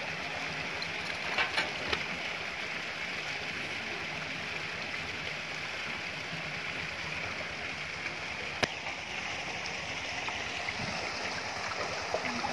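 Steady rush of water pouring from an inlet pipe into a concrete tank, with a few short sharp clicks, one about eight and a half seconds in.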